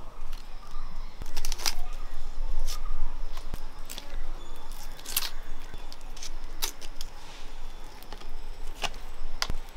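Irregular sharp clicks and light knocks, about a dozen scattered through, over a faint steady background noise.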